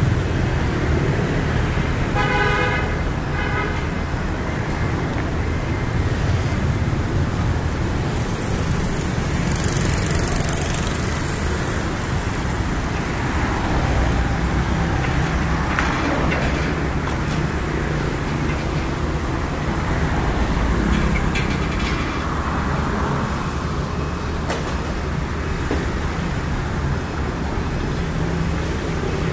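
Road traffic with a steady low rumble of engines and tyres, and a vehicle horn giving a few short toots about two seconds in.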